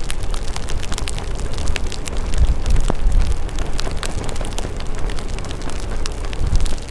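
Wind rumbling on the microphone and raindrops hitting it during a ride in the rain. There is a constant low rumble, with many sharp clicks scattered throughout.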